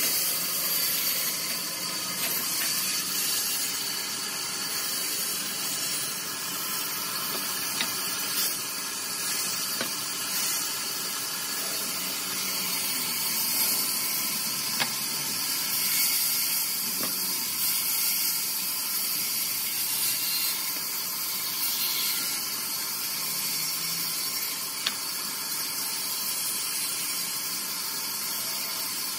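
Large vertical band saw running and cutting through a log, a steady high hiss with a faint whine and a few small clicks.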